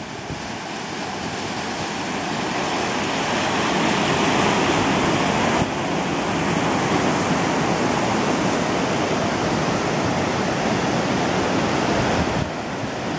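Rushing floodwater of a stream overflowing its banks after hurricane rains: a dense, steady rush that grows louder over the first few seconds and then holds.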